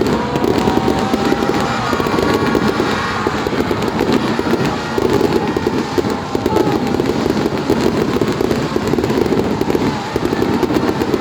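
Fireworks going off in a dense, continuous barrage of pops and crackles.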